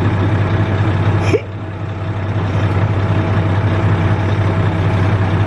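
Heavy equipment's engine running steadily. About a second and a half in there is a sharp click and the sound drops, then builds back up.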